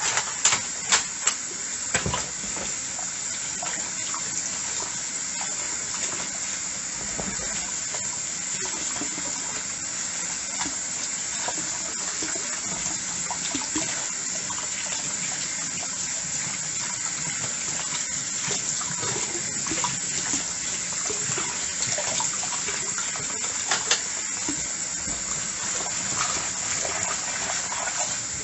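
Tap water running steadily into a sink while dishes are washed, with a few sharp clinks of dishes in the first couple of seconds and one more near the end.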